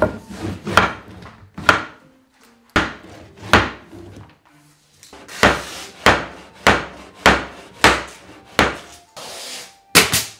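Hammer blows on solid-wood flooring boards being knocked into place: a dozen or more sharp wooden knocks at uneven spacing, with a brief scraping rub just before the last pair of blows.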